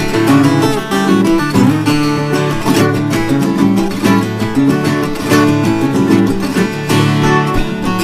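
Two violas caipiras (Brazilian ten-string folk guitars) playing an instrumental duet of fast picked and strummed notes in the pagode rhythm of Brazilian viola music.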